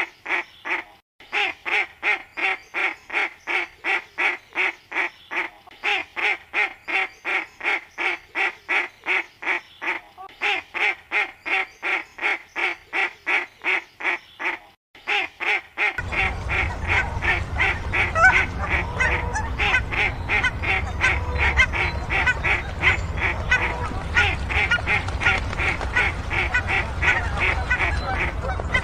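Ducks quacking in a fast, steady run of about four or five calls a second, with brief breaks about a second in and near the halfway mark. For the second half the quacking carries on over a steady low background rumble.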